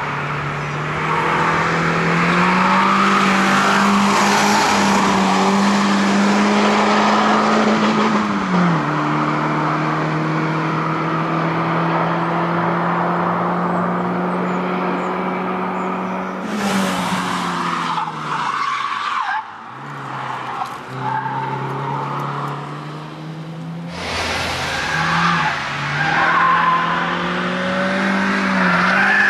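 A Peugeot hatchback rally car's engine held at high revs, its note stepping down about eight seconds in, with tyre squeal and skidding as it is thrown through a tight tyre-chicane course. The sound drops away briefly past the middle, then the engine and tyre noise return.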